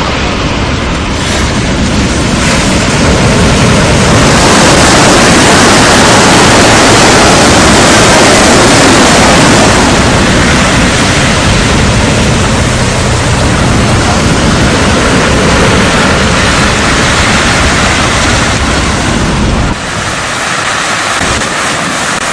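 Strong wind buffeting the microphone over waves breaking on the shore, a loud, rough rush of noise with a deep rumble. It is loudest in the middle, and the low rumble drops away about 20 seconds in.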